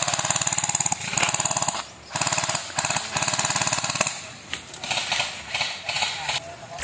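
Airsoft guns firing on full-auto: two long bursts of rapid clicking shots, about fifteen a second, with a brief pause between them about two seconds in, then quieter, more scattered fire.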